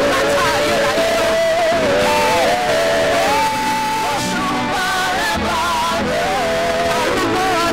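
A church praise team of several singers sings a gospel worship song together into microphones, with one long held note about midway.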